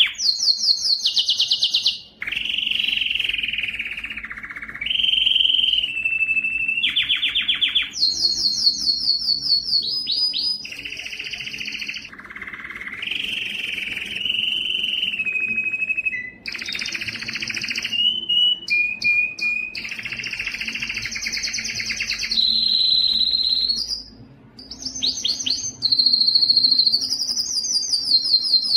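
Domestic canary singing a long song of rapid trills and rolls, switching to a new pitch every second or two, with two brief breaks.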